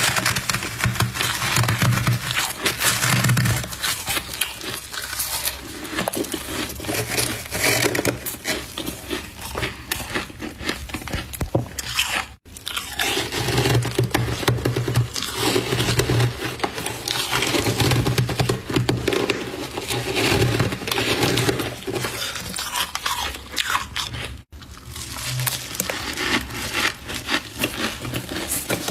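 Close, continuous crunching and scraping of soft frost being eaten, full of small crackles. It breaks off for an instant twice.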